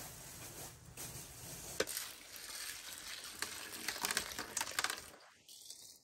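A thin plastic bag of dry lentils crinkling as it is handled, with the lentils pattering into a metal bowl in a run of small sharp clicks. The sound stops suddenly near the end.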